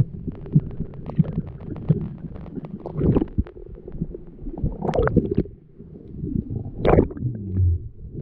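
Muffled underwater noise picked up by an action camera in a waterproof housing: a rapid scatter of small clicks and knocks, with a low gurgle of water. A few louder splashing rushes come as the camera breaks the surface and goes under again, the loudest near the end.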